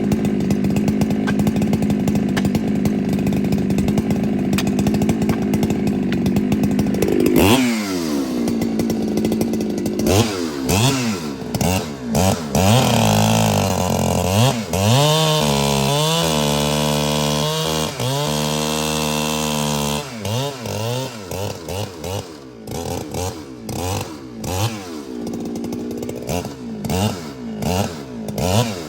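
Ported Husqvarna 395 two-stroke chainsaw running at a steady high speed, then dropping sharply as the throttle is released about seven seconds in. After that it is revved up and down repeatedly, held high for a few seconds, then blipped irregularly.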